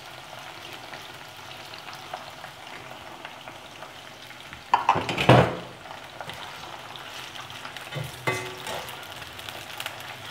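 Chicken pieces deep-frying in hot oil in a kadhai with a steady sizzle. Two brief louder clatters of a metal spoon against the pan come about five seconds in and again near eight seconds.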